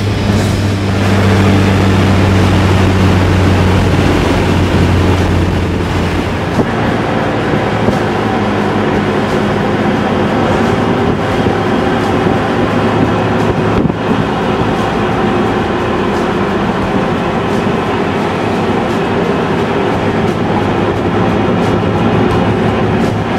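A Toyota MR2 with a swapped-in V6 engine cruising at steady speed, its engine droning evenly. About six seconds in the engine tone fades back and steady tyre and wind noise takes over.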